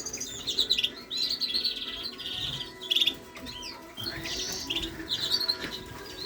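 Cage birds of a canary and British finch breeding room chirping and twittering, with rapid high trilled phrases overlapping one another.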